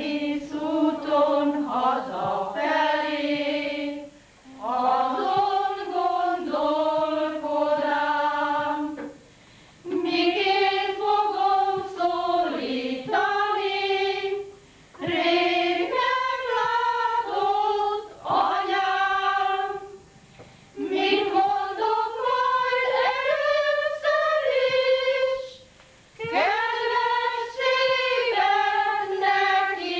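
Women's folk-song choir singing a Hungarian folk song unaccompanied. The song moves in phrases of about four to five seconds, each followed by a brief pause for breath.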